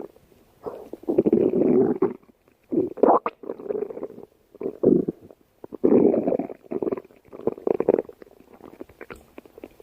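Stomach growling: a run of rumbles of uneven length, the longest about a second, broken by short pauses.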